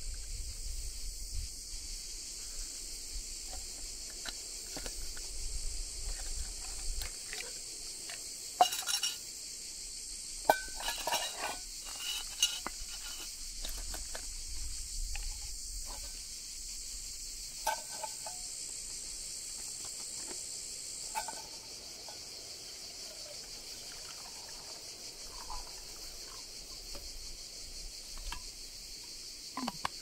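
Steady high-pitched drone of insects, with scattered clinks and knocks of camp coffee gear being handled, busiest in the middle. The insect sound drops a little about two-thirds of the way in.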